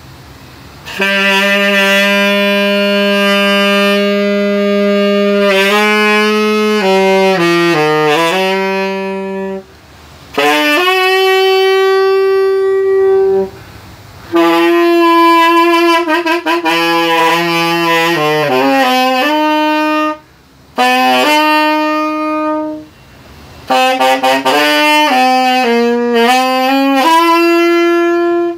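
Solo tenor saxophone playing a slow ballad melody, unaccompanied: long held notes and quick runs, with short breaks for breath between phrases.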